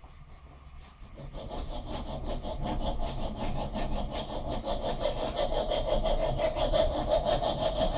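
Coarse hand file rasping back and forth across a quarter-inch aluminium round rod clamped in a vise. It starts about a second in and settles into steady, rapid strokes. The rod's curved side is being dressed down flat.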